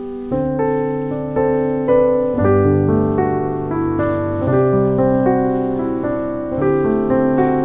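Background piano music: single notes and chords played at an easy pace, with the bass note changing every two seconds or so.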